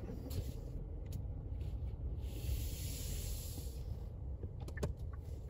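Road noise inside a moving car: a steady low rumble, with a hissing whoosh from about two to four seconds in as an oncoming car passes.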